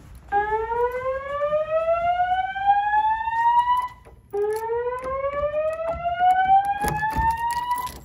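Fire alarm evacuation tone from Wheelock speaker strobes driven by a Notifier voice-evacuation panel: two slow-whoop sweeps, each a tone rising steadily in pitch for about three and a half seconds, with a brief break between them. This is the alert tone that alternates with the recorded evacuation message.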